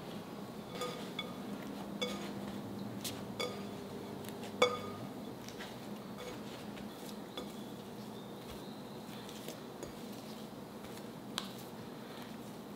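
Metal fork clinking against a glass mixing bowl while stirring bread dough, several taps each leaving a short ring, the loudest about four and a half seconds in. After that the clinks mostly stop as the dough is worked by hand, with one more light tap near the end.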